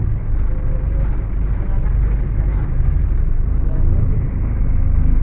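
Scania K250UB city bus's five-cylinder diesel engine running under way, a loud steady low rumble.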